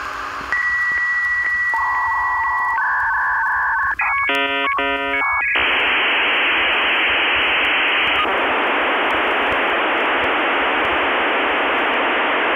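Electronic beeps and steady tones, then a burst of chirping tones about four seconds in, then a long steady static hiss from about six seconds on.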